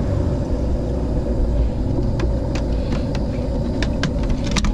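Tritoon pontoon boat's outboard motor running steadily at low speed as the boat moves off, with wind buffeting the microphone. A few light clicks near the end.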